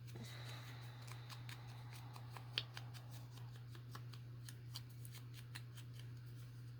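Scissors snipping paper in many small, quick cuts, with light paper rustling and a steady low hum underneath.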